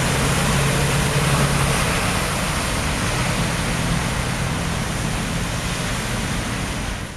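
Cars driving slowly through floodwater on a submerged road: a steady rush of water sprayed off their tyres, with the low hum of their engines underneath.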